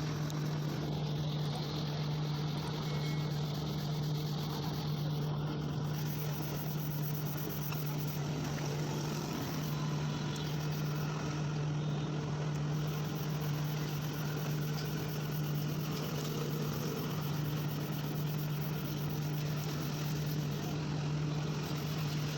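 A motor running at a steady, unchanging speed, giving a constant hum.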